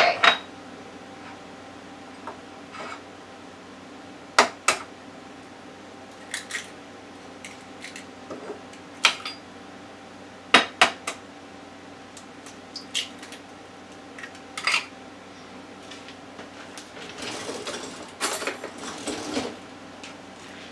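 Eggs being cracked into a small ceramic ramekin: scattered sharp taps and clinks of shell and crockery on the counter, with a spell of rustling near the end.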